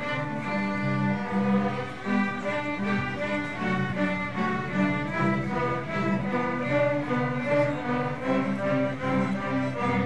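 A children's string orchestra playing, violins bowing a continuous tune together with lower string parts underneath.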